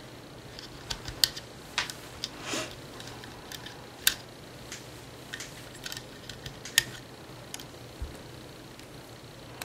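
Irregular sharp clicks and snaps of small rubber loom bands being stretched onto the plastic pegs of a bracelet loom, with fingers tapping the plastic, a few of them louder; a low steady hum runs underneath.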